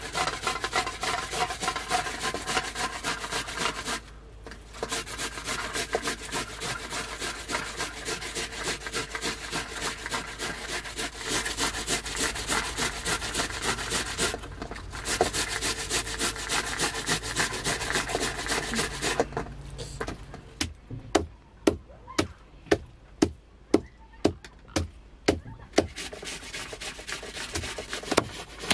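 Fast, rhythmic scraping strokes, several a second, that break off briefly twice. About twenty seconds in they give way to sharp knocks, roughly two a second.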